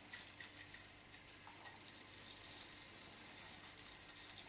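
Faint, continuous patter of small clicks from granular bonsai substrate, an akadama and kiryuzuna mix, being added and worked in around a maple's root ball.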